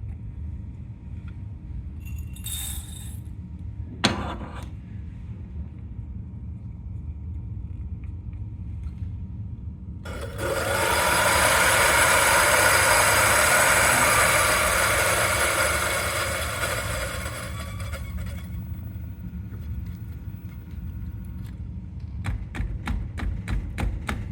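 Turin DF83V 83 mm flat-burr grinder grinding a 16 g dose of dark-roast espresso beans: a steady whine with a gritty rasp, lasting about seven seconds and tapering off as the beans run out. A couple of knocks come before it, and a quick run of light taps follows near the end.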